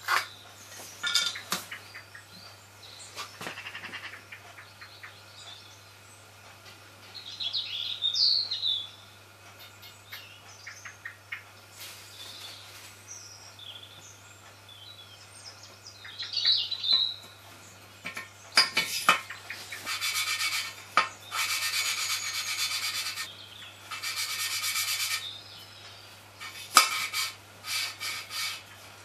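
Small-engine valve being hand-lapped into its seat with grinding paste: the lapping stick is spun between the palms, and the valve face grinds against the seat in a series of gritty rasping strokes, each a second or two long, through the last third. Earlier come light clicks and taps as the valve and tool are handled, and two short bouts of bird chirping.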